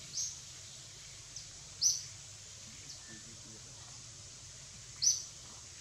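A bird chirping three times, short high notes, the second and third loudest, over a steady high hiss of forest ambience.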